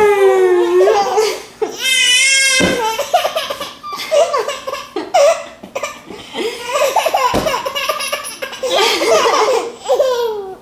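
Baby laughing hard in repeated belly laughs, with a high squeal about two seconds in. A few thumps are heard.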